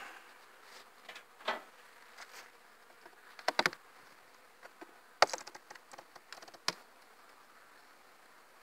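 A handful of sharp knocks and clicks from a wooden beehive cover board being handled on the hive, the loudest about halfway through, over faint buzzing of honeybees.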